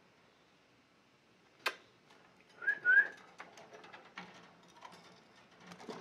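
A peach-faced lovebird gives two short rising chirps about three seconds in, after a single sharp click a little earlier. Light ticks and scratches follow as it climbs about its wire cage.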